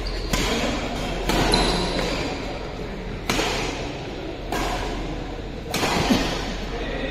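Badminton rally: rackets hitting the shuttlecock in sharp, echoing strikes, roughly one every second or so, over steady hall background noise.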